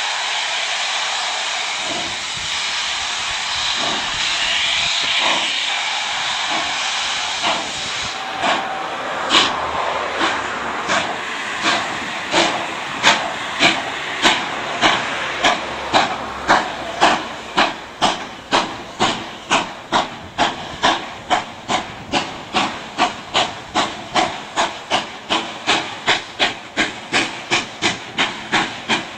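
Two steam locomotives double-heading a passenger train: a steady hiss of steam at first, then sharp exhaust chuffs from about eight seconds in, coming quicker until about two a second as the locomotives work harder.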